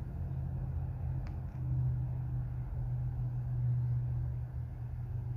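Steady low hum with a faint click a little over a second in.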